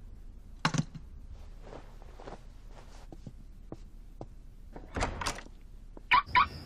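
A metal alarm clock is handled on a bedside table with a sharp thunk. A longer scuffling sound follows about five seconds in, then two sharp knocks just after six seconds.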